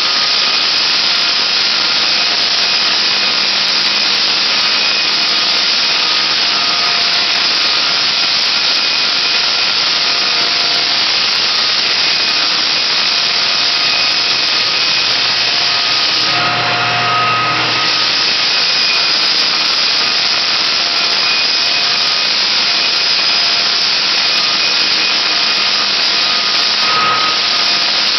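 Hardwood floor sander running across a bare wood floor, with its dust-extraction vacuum drawing through the hose: a loud, steady sanding noise. A deeper hum comes in briefly about two-thirds of the way through.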